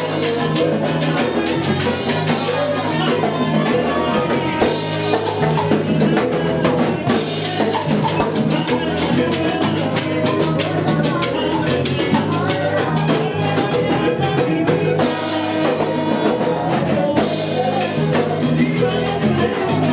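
Salsa orchestra playing an instrumental passage of busy drums and percussion over sustained bass and chords.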